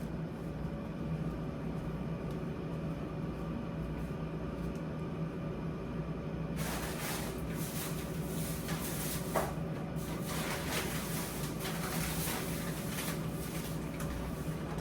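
Frozen grocery packages being handled and put away in a fridge freezer: rustling plastic and cardboard with scrapes and a sharp click, starting about halfway through, over a steady low hum.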